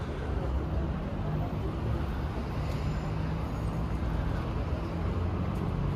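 Street traffic: a steady low rumble of passing road vehicles.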